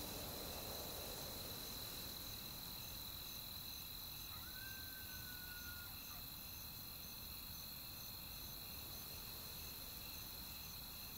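Faint steady high-pitched hum with a soft, regular chirp about twice a second. A single thin, slightly falling whistle-like tone comes about four seconds in and lasts a second and a half.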